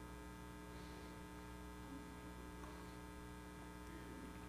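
Steady electrical mains hum, faint, with many even overtones giving it a buzzy edge, over quiet room tone.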